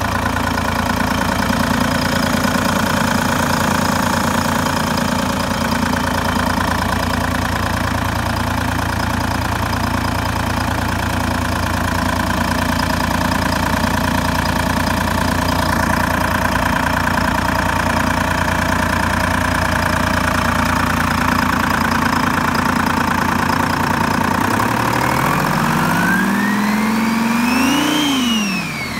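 Turbocharged engine of a 1938 Ford rat rod, fitted with a smaller turbo, idling steadily, then revved once near the end: the engine note climbs and drops back, and the turbo's high whistle rises and falls with it.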